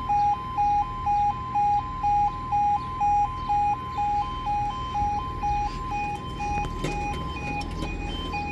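Level crossing warning alarm sounding as the crossing closes for a train: a two-tone yodel alternating between two pitches about twice a second. Faint clicks come in about seven seconds in.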